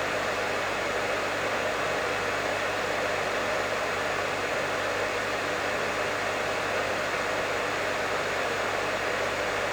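Professional hair dryer running continuously: a steady, even blowing noise with a low hum underneath.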